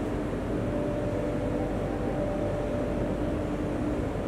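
Steady hum and whoosh of a stationary MRT train carriage standing at a station with its doors open, mostly its air conditioning and electrical equipment running, with a faint higher steady tone through the middle.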